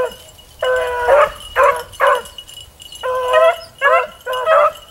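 Beagles baying in a run of short, repeated bawls as they work a scent line through the brush. After a brief lull at the start, the bays come in quick succession.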